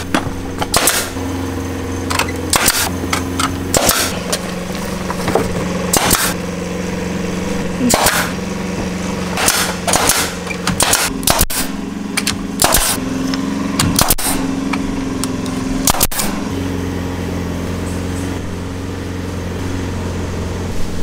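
Pneumatic nail gun firing nails into cedar porch-post wrap boards: sharp, irregular shots, some in quick pairs, over a steady low hum.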